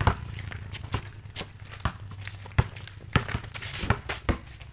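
A basketball bouncing on a concrete road, with flip-flops slapping on the concrete as players run. The thuds and slaps come irregularly, about a dozen sharp hits.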